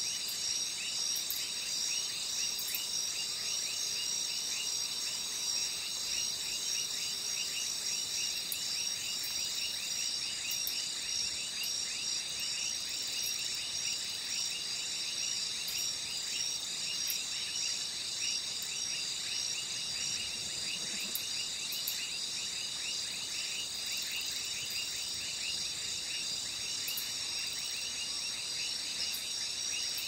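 Night insect chorus of crickets and other insects: a dense, steady, shrill trilling, with a fast unbroken run of short falling chirps beneath it.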